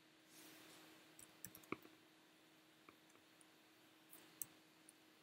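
Faint computer mouse and keyboard clicks: a quick cluster of about five clicks a second and a half in, then a few single clicks, over a faint steady hum.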